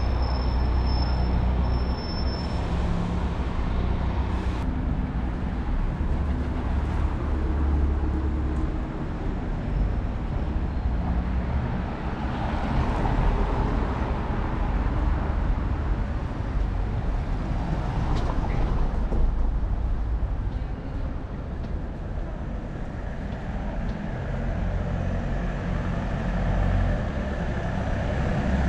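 Town-centre road traffic: motor vehicle engines running and passing, a continuous low rumble.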